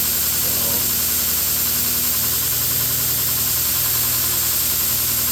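2x72 belt grinder running steadily, its 1 hp Techtop electric motor on a KBMA-24 speed control driving the belt: a constant hum with a high hiss over it.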